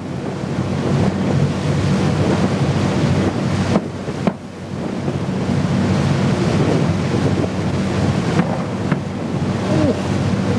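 Wind buffeting the microphone: a loud, steady rushing rumble, with a few faint thuds of distant fireworks bursting.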